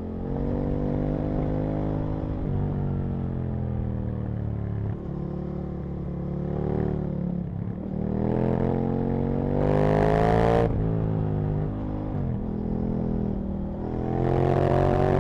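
Aprilia RSV Mille's V-twin engine pulling under load, its revs climbing and then dropping sharply several times as it works through the gears. It revs highest about ten seconds in and again near the end, where a rush of noise rises with the engine.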